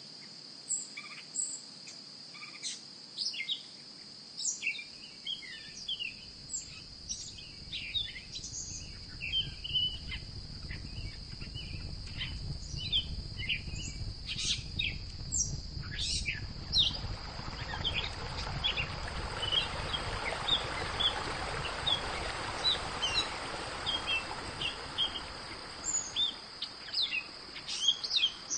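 Many small birds chirping over a steady, high-pitched insect drone. A low rumble builds from about five seconds in, and past the middle the rushing of running water grows beneath the birdsong.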